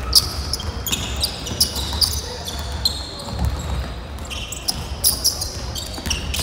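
Basketball game on a hardwood gym floor: sneakers squeak in many short high chirps as players run and cut, and the ball bounces now and then.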